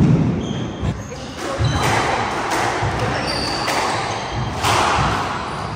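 Squash ball struck by rackets and smacking off the court walls in a rally, a sharp hit every second or so, echoing in the court. Court shoes squeak briefly on the hardwood floor and scuff as the players move.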